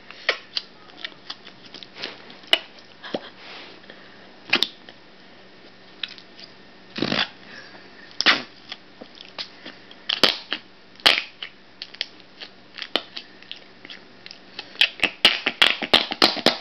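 Green slime being worked by hand, giving irregular sticky pops, clicks and short squelches that come thicker and faster near the end.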